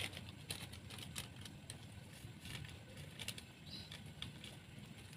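Coconut-milk vegetable stew simmering in a wok, with faint irregular bubbling pops and clicks.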